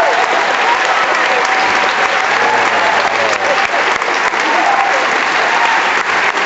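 Concert audience applauding, with cheers and whoops rising and falling over the clapping.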